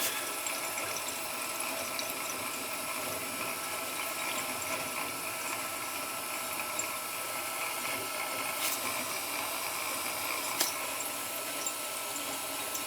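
Old gas boiler running after firing: a steady, even hiss with water moving through the piping and no squeal, a couple of faint ticks partway through.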